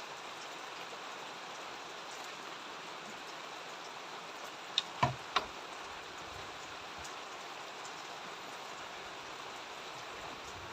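Steady rain falling, an even hiss, with three sharp clicks close together about halfway through.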